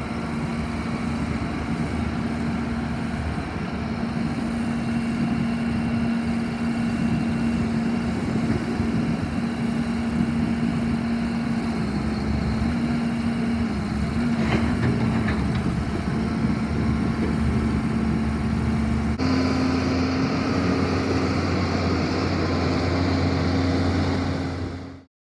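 Diesel engine of a Doosan DX160W wheeled excavator running at a steady speed, with a few faint clicks about halfway through. The engine note is slightly higher over the last few seconds, then it fades out.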